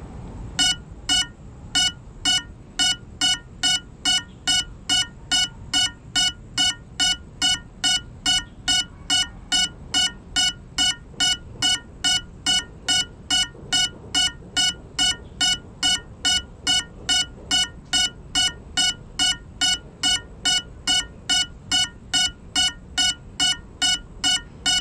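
A crashed FPV drone's lost-model beeper sounding: identical short, shrill beeps at about two a second, steady in pitch, starting about half a second in. It is the locator alarm that helps the pilot find the downed quad in the grass.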